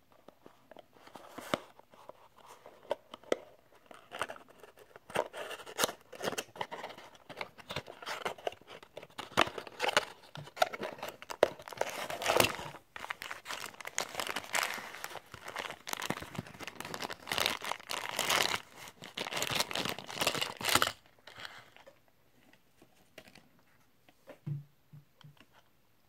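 A small cardboard toy box being opened by hand and a die-cast car taken out of it: a long stretch of rustling and scraping cardboard. About 21 seconds in it gives way to quieter handling with a few light taps.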